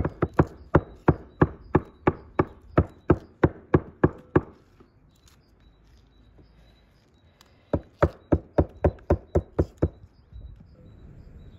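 Cleaver chopping meat on a wooden block: steady strikes about three a second, stopping after about four seconds, then starting again for about two seconds near the end.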